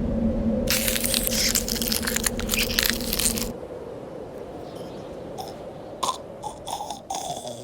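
Loud crackling noise over a steady low hum for about three seconds, then a fainter hiss with scattered clicks and pops.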